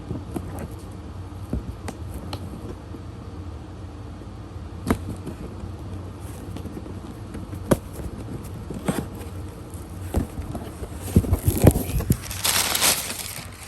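Package being handled and unpacked: scattered taps and clicks, then a louder burst of crinkling and rustling of the packaging near the end, over a steady low hum.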